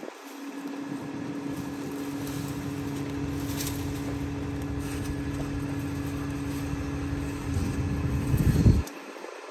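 Garbage truck engine running steadily with a constant hum, getting a little louder near the end before the low rumble drops away suddenly.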